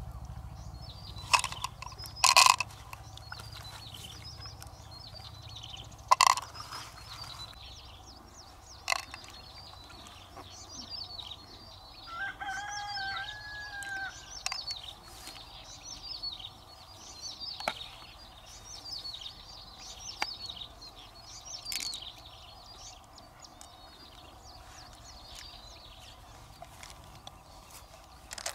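A rooster crows once, a drawn-out arched call of about two and a half seconds starting about twelve seconds in, over small birds chirping throughout. A few sharp clicks or knocks, the loudest sounds, come in the first nine seconds.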